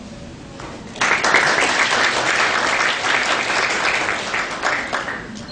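Audience applauding: the clapping breaks out suddenly about a second in and dies away near the end.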